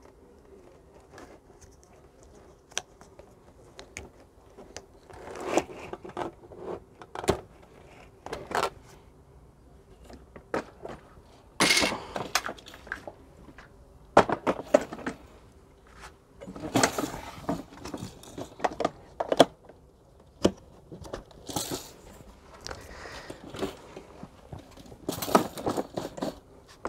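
Irregular plastic clicks, knocks and rustling from handling a Parkside electric scarifier during assembly, as its fabric grass collector is fitted and its handle is raised and set.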